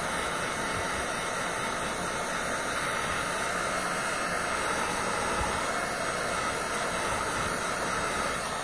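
Handheld electric heat gun running, a steady fan-driven rush of hot air.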